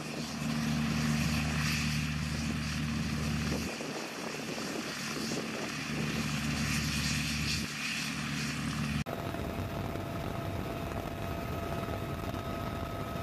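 UH-1Y Venom twin-turboshaft helicopter running on the ground with its rotors turning, a loud steady engine and rotor sound that dips briefly twice. About nine seconds in it switches abruptly to the steady roar inside the cabin in flight.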